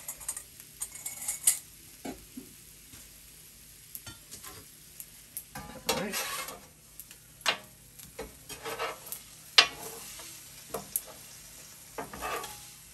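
Metal spatula and scraper scraping and clanking on a Steelmade USA steel flat-top griddle as cooked chicken is scooped up, over a faint steady sizzle. There are scattered scrapes and sharp clanks, with a longer scrape about halfway through and the loudest clank a little later.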